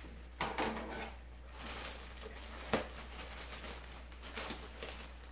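Packaging being handled and opened, with irregular rustling and one sharp click nearly three seconds in.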